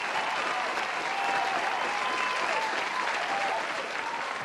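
Steady applause from a crowd, with short rising and falling voice-like calls over the clapping.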